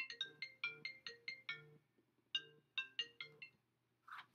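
Phone ringtone playing a short melody of quick, bright notes twice, with a pause between the two runs, followed by a brief soft noise just before the end.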